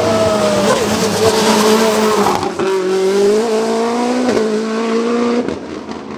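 Mitsubishi Lancer hillclimb prototype's engine at full throttle, its note climbing and then dropping sharply at gear changes twice, and fading near the end.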